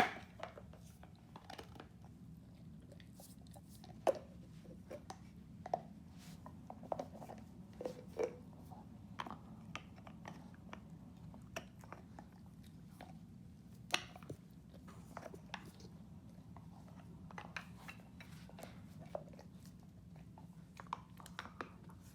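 A dog gnawing on a deer antler: irregular hard clicks and crunches of teeth on antler, with the sharpest ones about four seconds in and again about fourteen seconds in.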